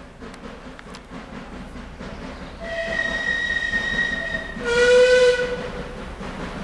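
The approaching train sounds its warning twice over the low rumble of the Class 09 diesel shunter. First comes a higher note held for about two seconds, then a shorter, louder, lower note about halfway through.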